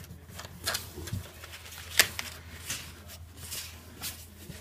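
Cardboard box scuffed and knocked as a ferret and a cat scramble in and around it: a string of sharp scrapes and taps, the loudest a little after two seconds in.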